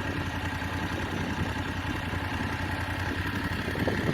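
BMW F850GS parallel-twin motorcycle engine idling steadily, with an even, rapid pulse.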